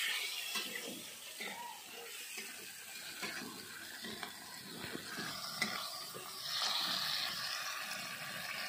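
Steel spatula scraping and stirring around a metal kadhai in short, irregular strokes, with masala paste, onions and tomatoes sizzling in the hot oil; the sizzle swells briefly about seven seconds in.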